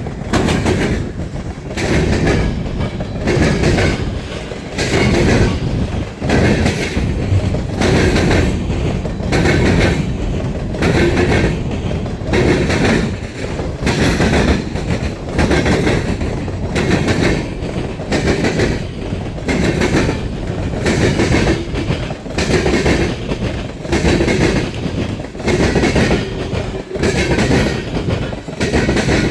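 Norfolk Southern freight cars rolling past, wheels clacking over the rail joints in a steady rhythm of about one beat a second.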